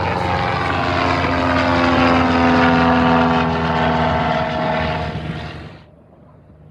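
A Cessna's piston engine and propeller drone loudly as it flies past low on a go-around. The pitch falls slightly as it passes, and the sound cuts off suddenly near the end.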